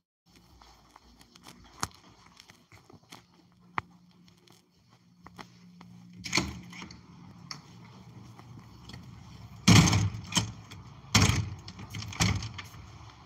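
Handling noise from a phone being carried: rubbing and small clicks, then several heavy thumps and knocks, the loudest two about ten and eleven seconds in.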